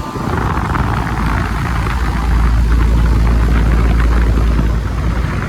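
Outdoor condensing unit of a 2020 Carrier Comfort 2-ton, 13 SEER central air conditioner running: compressor and Broad-Ocean condenser fan motor give a loud, steady low rumble with a rush of air, a little louder from about two seconds in. The owner says it still sounds a bit rough.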